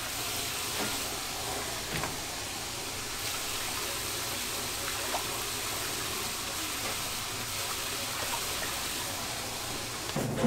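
A kitchen faucet running hard into a stainless-steel sink full of water, splashing steadily as gloved hands rinse coils of sundae (Korean blood sausage) in it.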